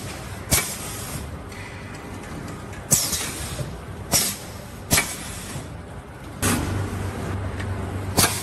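SFT-BHJ automatic tray sealing machine running: short sharp bursts of air from its pneumatics come at irregular intervals, about six times, over a mechanical running noise. A steady low hum sets in about two-thirds of the way through.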